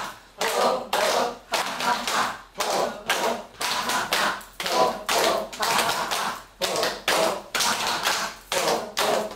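Hands clapping in a steady rhythm, about two claps a second, each clap sharp and echoing briefly in the room.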